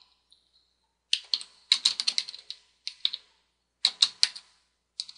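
Computer keyboard keystrokes typing a short line of text: quick clicks in short bursts with brief pauses between them, starting about a second in.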